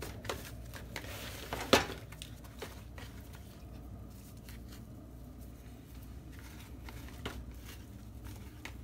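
Hands sorting and lifting slices of raw beef in a bowl: soft, wet handling sounds with scattered light clicks, and one sharp knock a little under two seconds in, over a low steady hum.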